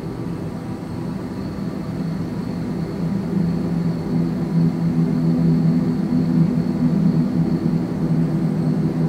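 A steady low engine drone grows gradually louder, with a faint steady high whine above it.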